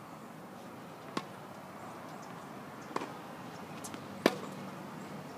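Tennis ball being hit with rackets and bouncing on a hard court during a rally: three sharp pops, about a second in, about three seconds in, and the loudest just past four seconds.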